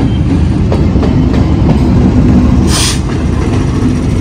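Pakistan Railways diesel-electric locomotive passing close by with a passenger train: a heavy, steady low rumble and engine drone. A short, sharp hiss comes about three seconds in.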